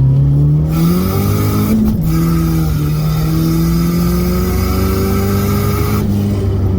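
Ford Mustang SVO's turbocharged 2.3-litre four-cylinder accelerating hard, heard from inside the car. The revs climb, drop at a quick shift from second to third about two seconds in, then rise more slowly. A loud rushing noise over the engine cuts off about six seconds in.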